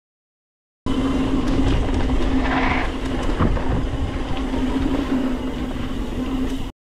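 A mountain bike riding fast over a rough trail: steady rumbling tyre and trail noise with rattling and a steady hum. It starts abruptly about a second in and cuts off just before the end.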